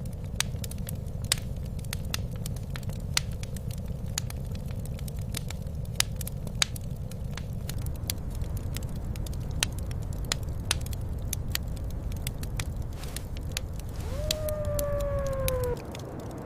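Wood fire crackling with sharp, irregular pops over a steady low rumble. Near the end comes a single falling tone lasting about a second and a half.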